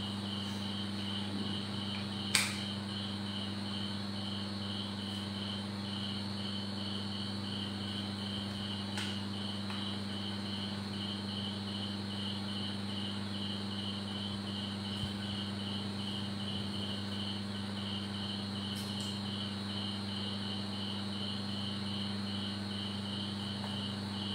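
An insect chirping in a steady rhythm of about two to three high pulses a second, over a low steady hum. A single sharp click comes a couple of seconds in.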